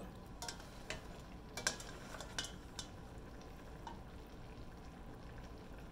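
Wooden pasta fork knocking and scraping against a stainless steel pot as cooked angel hair pasta is lifted out: several light clicks in the first three seconds, over faint steady frying from the electric wok.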